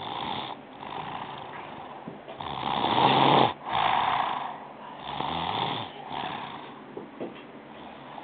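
Two-year-old child snoring in deep sleep: a series of loud snoring breaths, the loudest about three seconds in, followed by a few weaker ones.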